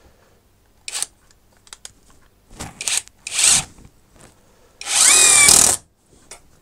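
Metabo SSD 18 LT 200 BL 18 V brushless impact driver on its top 200 Nm setting driving a long screw into a timber block: a few short bursts, then one loud run of about a second as the screw goes in. The speed shows how powerful the driver is at this setting.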